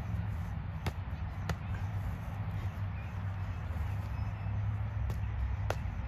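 Boxing gloves landing during sparring: four sharp slaps in two pairs, about a second in and again about five seconds in, over a steady low rumble.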